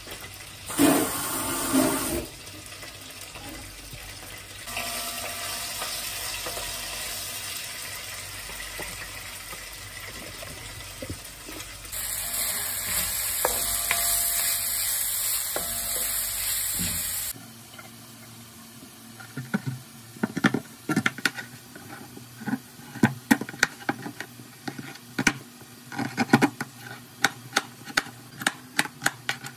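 Diced onion and bell pepper sizzling as they fry in a pan, stirred with a wooden spatula, a steady hiss with a brief louder rush about a second in. After about 17 s it gives way to a knife chopping carrot on a plastic cutting board, a run of irregular sharp knocks.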